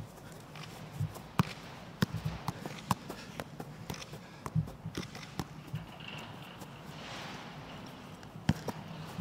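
A football being juggled: irregular short thuds as the ball is struck by foot, knee and head, a few touches a second with pauses between.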